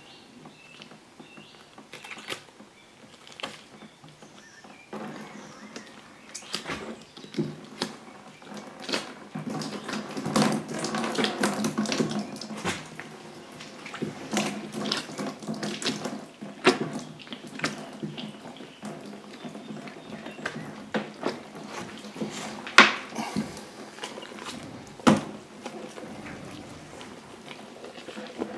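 Wet squelching and rustling as a roe buck's stomach and intestines are pulled by gloved hands from the hanging carcass, with irregular sharp wet smacks and clicks, two of them louder near the end.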